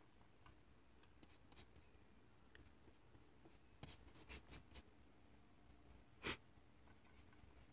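Flat watercolor brush stroking wet paint across paper: faint, soft scratchy brushing, a cluster of short strokes about four seconds in and a single louder stroke about six seconds in.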